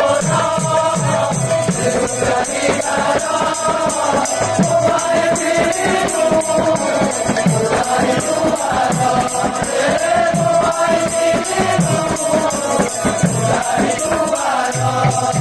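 Kirtan music: voices singing together over a steady drum beat and jingling hand percussion, with a sustained melodic tone underneath.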